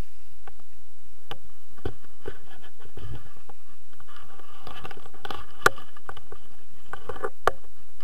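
Wind buffeting an action camera's microphone, with scattered clicks, scrapes and rustles from paragliding harnesses and the camera mount being handled after landing; one sharp click about two-thirds of the way in is the loudest.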